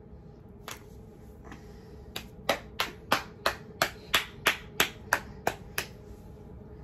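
One person's hands clapping, about fourteen sharp claps: two spaced apart, then an even beat of about three claps a second.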